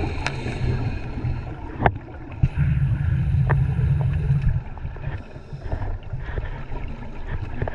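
Muffled underwater rumble of a scuba diver's regulator bubbles, coming in two long surges a couple of seconds each and then easing off, with a few sharp clicks.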